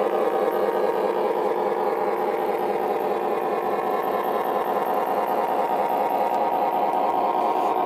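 G scale model railmotor running along 45 mm gauge track: a steady mechanical whir of its drive with wheel noise on the rails.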